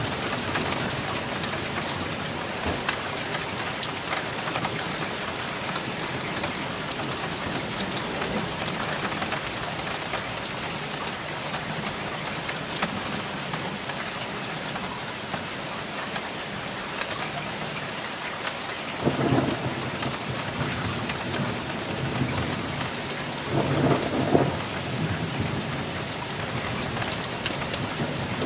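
Thunderstorm: a steady hiss of rain with rolling thunder in the background. Two louder rumbles of thunder come about two-thirds of the way through and again a few seconds later.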